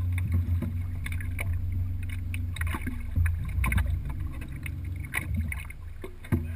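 Boat motor running with a steady low hum, with scattered light clicks and knocks on top.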